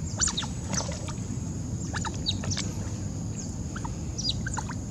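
Otters chirping to one another: many short, high, falling chirps, scattered and overlapping, over a low steady rumble.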